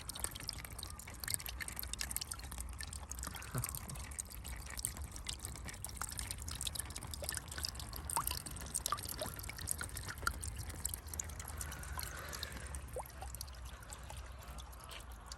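Small waterfall trickling and splashing steadily into a pond, fed by a little electric water pump.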